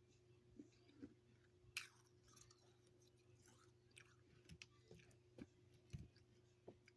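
A person chewing freezer frost: quiet, irregular crunches and crackles, the loudest about two seconds in.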